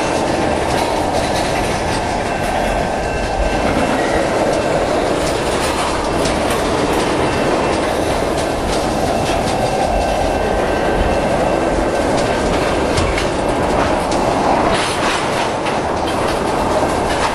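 Freight train of tank cars rolling past close by: a steady rumble of steel wheels on rail, with rapid clickety-clack as the wheels strike the track joints and crossing diamonds, and a faint thin wheel squeal at times.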